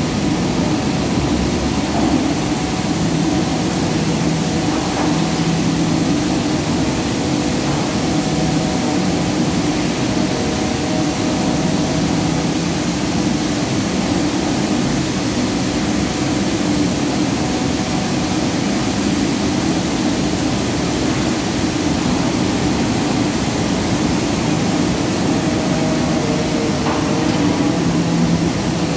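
Palm oil mill machinery running: a loud, steady industrial din with a low hum and faint steady tones above it.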